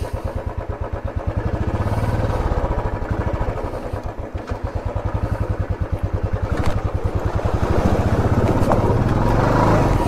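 Motorcycle engine running under load through a shallow river crossing. The revs ease off about four seconds in, then climb again toward the end as the bike pushes through the water.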